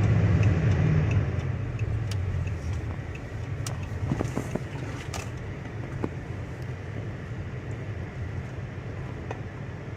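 Car driving: steady engine hum and road noise, loudest in the first couple of seconds and then easing off, with a few faint clicks.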